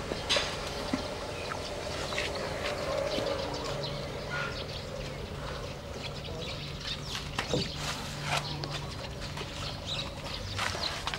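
Asian elephants feeding on corn: irregular crunching, cracking and rustling of cobs and husks being picked up and chewed, scattered through the whole stretch.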